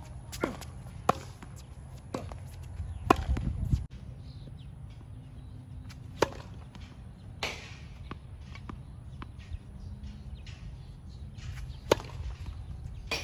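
Tennis ball struck by a racket on a hard court, each hit a sharp crack. A quick run of strokes in a rally comes first, then single serves several seconds apart, over a steady low background noise.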